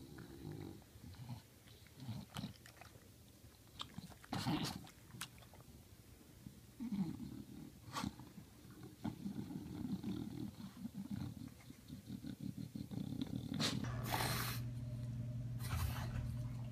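Bulldog sniffing and breathing noisily close up, with irregular low rumbling snuffles and a few sharp clicks. Near the end, a louder steady low hum with hiss takes over.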